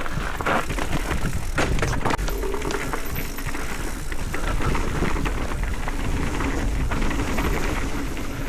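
Wind rushing over the microphone and a mountain bike clattering over rough ground on a downhill descent, with frequent short knocks from the trail.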